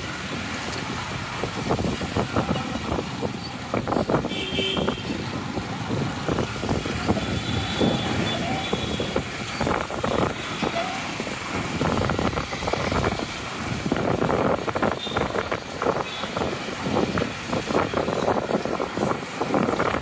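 Road traffic and the vehicle's own running, heard from inside a moving car, with irregular taps and knocks throughout and a couple of brief high tones.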